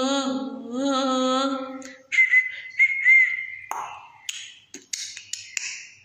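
A woman sings unaccompanied, holding the last note of a Hindi song line for about two seconds. She then whistles a short, thin high note that wavers slightly. It is followed by breathy puffs and lip clicks.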